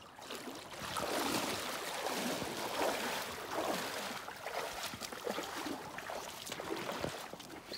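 Wader boots wading through shallow river water, with repeated irregular splashes and sloshing as each foot moves through it.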